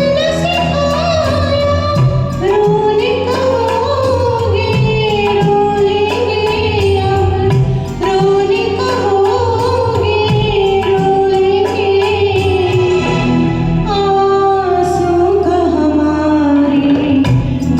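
A woman singing a slow Hindi film song with held, wavering notes over a karaoke backing track with a steady beat.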